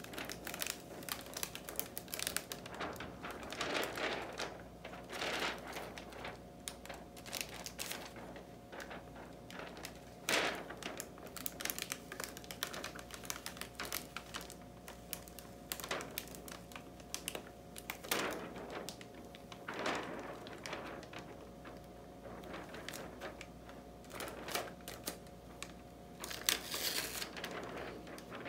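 Sticky clear hotfix tape being peeled up off a rhinestone flock template, lifting the rhinestones with it: irregular small clicks and ticks, with a few longer crackling peels.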